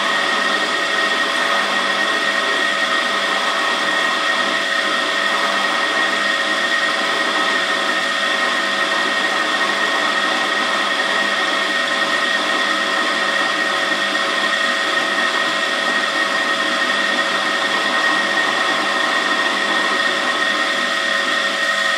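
Pillar drill's motor running at a constant speed with a steady whine, its small bit turning against a piece of iron clamped in a vise.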